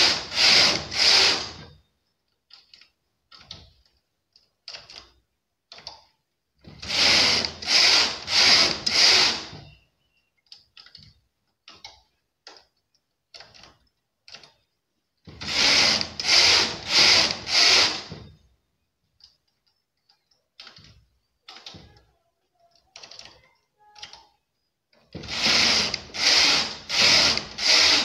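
Knitting machine carriage pushed back and forth across the metal needle bed in sets of four quick passes, four rows knitted at a time, a set recurring every eight to nine seconds. Between the sets come faint clicks as stitches are lifted one needle in at each edge with a transfer tool, decreasing the piece.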